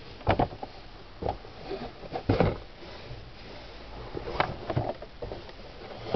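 Handling of a camera's original cardboard box and packing: a series of separate knocks and short scrapes, about half a dozen, the firmest a little over two seconds in.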